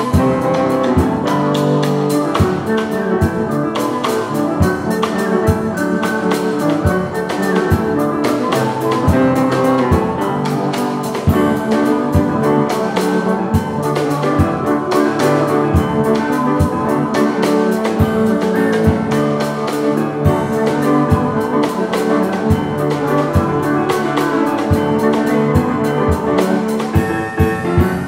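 Small jazz-folk band of flute, cello, piano and drum kit playing a fast Appalachian fiddle tune, with steady drum hits under the melody. Near the end the busy playing stops and a final chord is held.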